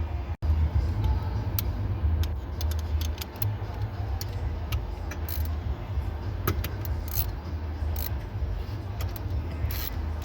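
Metal hand tools clicking and clinking at irregular moments over a low steady hum, as a 16 mm socket and an Allen key are worked at the steering-wheel fastenings.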